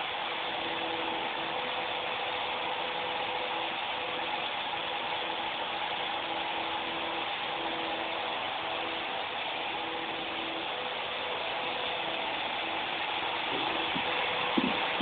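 Small toy RC helicopter's electric rotor motor whirring steadily as it flies, its hum wavering slightly in pitch. A single short knock near the end.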